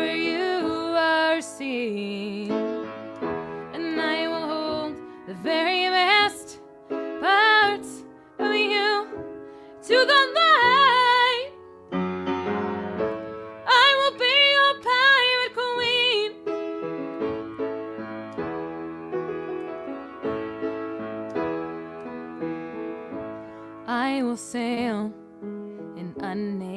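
A woman singing over keyboard accompaniment, with long wavering sung notes. Her voice drops out at about 16 seconds, leaving the keyboard chords alone for several seconds, and comes back near the end.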